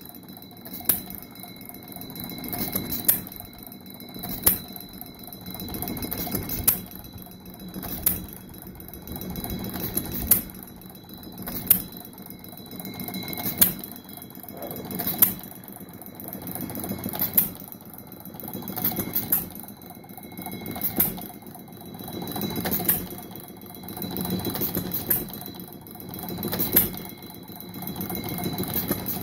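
5/16-scale model Root and Vandervoort vertical hit-and-miss gas engine running, firing with a sharp pop about every one and a half to two seconds and coasting between, with a fast mechanical clatter under the pops.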